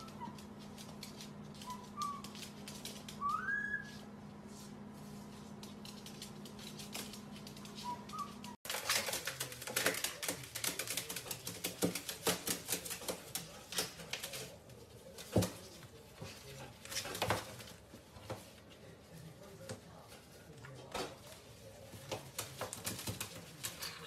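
Two white-bellied caiques wrestling on a metal counter: irregular clicks, taps and scuffles of feet and beaks, with flurries of wing flapping. Before a sudden cut, a few short rising parrot chirps over a steady low hum.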